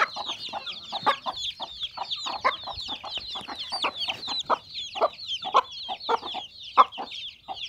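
A flock of chickens feeding on scattered grain: hens clucking in short notes several times a second, while chicks peep high and fast without a break.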